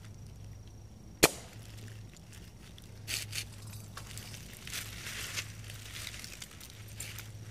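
A single sharp gunshot about a second in, followed by bursts of rustling in dry fallen leaves.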